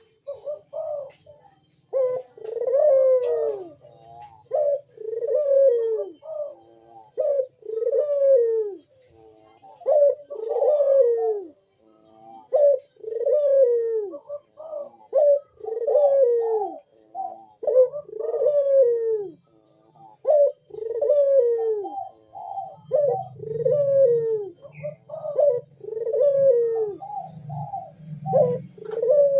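A puter (Barbary dove) cooing over and over in its full 'bekur' calling song: a steady string of deep, arched coos, one about every second or so.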